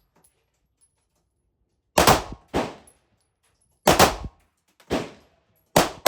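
Five sharp pistol shots, unevenly spaced about half a second to two seconds apart, each dying away quickly.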